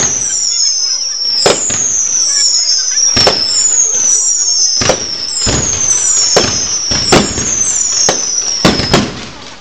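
Fireworks going off in quick succession: a steady run of high whistles, each falling in pitch, with sharp bangs about every second. The whistling stops near the end.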